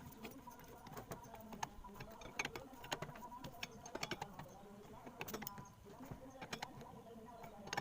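Irregular light clicks and taps of small parts being handled, over a faint steady hum.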